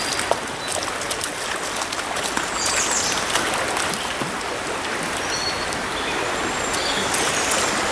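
Shallow river water running steadily over a riffle, with a few short high bird chirps and a few brief clicks.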